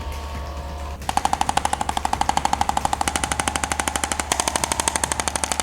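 A motorized device hammering in rapid, evenly spaced pulses. It starts about a second in and steps up in pitch twice before stopping near the end.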